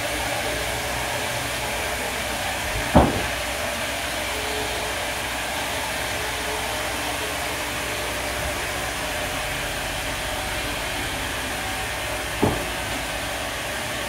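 Sawmill machinery running with a steady noise, broken by two sharp knocks, one about three seconds in and a fainter one near the end.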